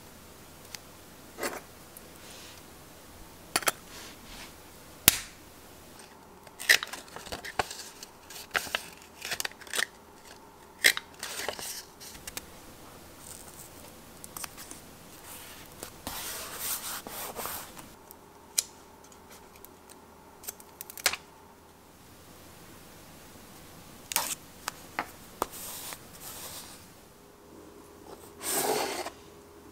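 Paper and stationery handling at a desk: scattered taps and clicks, with rustling and scraping stretches as a kraft-paper square is pressed down onto a ring-binder journal page. Near the end comes a louder scraping rush as a book is pulled from a shelf.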